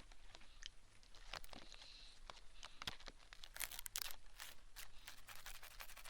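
Fine horsehair ear-cleaning strands brushing and scratching at the ear of a binaural microphone: a run of faint, irregular crackles and scratchy ticks.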